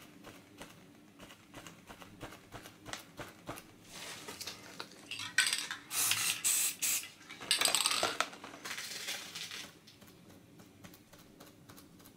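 Aerosol spray paint can hissing in a run of short bursts through the middle, with a softer spray after them. Quick light clicks and scratches come before.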